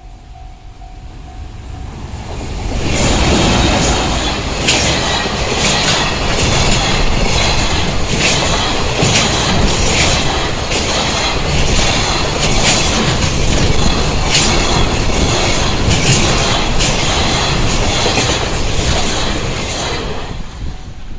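Freight train passing a level crossing. It builds up over the first couple of seconds, then a long line of wagons runs by with rhythmic clacks of wheels over rail joints, and it fades near the end. A steady warning-bell tone from the crossing is heard before the train arrives and again as it dies away.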